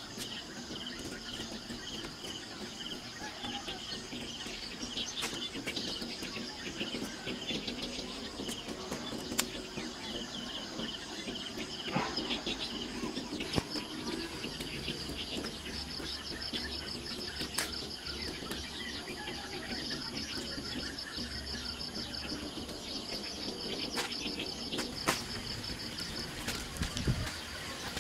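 Insects trilling in steady, evenly pulsed chirps, with bird calls and a few scattered sharp clicks.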